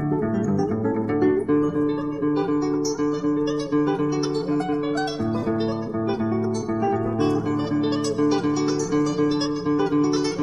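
Solo classical guitar playing a piece: quick runs of plucked notes over held bass notes.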